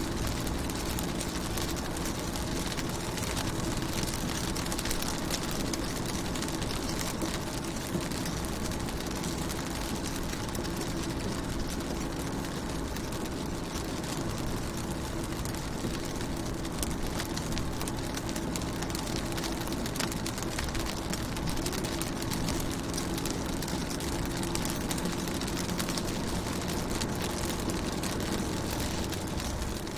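Rain pattering on a car's window, a steady hiss of many small drop ticks, with a steady low hum underneath.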